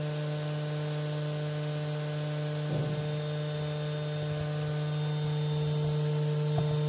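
Steady electric hum from a CNC spindle rig (DC spindle motor and its power supply), one low pitch with evenly spaced overtones, with a thin high tone joining about three seconds in. A faint knock sounds about three seconds in and another near the end.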